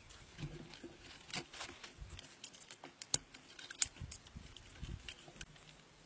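Irregular small clicks, taps and rustles of sticks and wire being handled and bound on a handmade stick-and-wire frame, with two sharper clicks a little past the middle.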